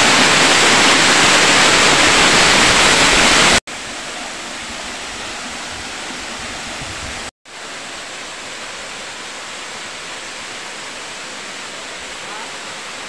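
Waterfall: a steady rush of falling water. It is broken by two brief gaps, about three and a half and seven seconds in, and is quieter after each one.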